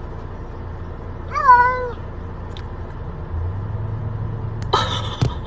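A cat meowing from inside a plastic pet carrier: one drawn-out meow about a second and a half in, and a shorter, higher meow near the end, over a steady low hum inside the car.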